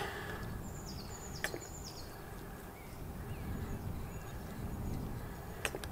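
Quiet outdoor ambience with a few faint, high bird chirps about a second in, and two sharp clicks, one early and one near the end.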